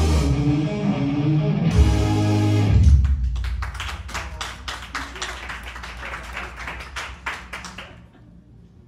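Idol-pop backing track with electric guitar played loud through the venue PA for about three seconds. It then drops to a thin, even ticking beat, about four ticks a second, that fades away toward the end as the song finishes.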